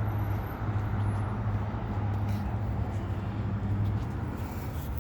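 Steady low hum with a rumbling outdoor background, like vehicle noise.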